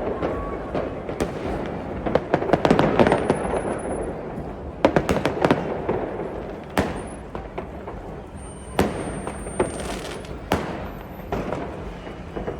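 Fireworks going off: a dense run of crackling bangs, then single sharp bangs every second or two, with thin high whistles now and then.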